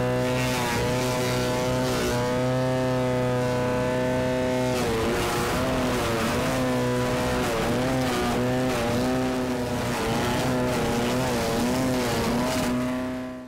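Forest Master FM14DD petrol wood chipper running and chipping apple-tree branches. Its engine holds a steady note at first; from about five seconds in the note dips and recovers repeatedly as the branches load it, with crunching of wood through the chipper. It fades out just before the end.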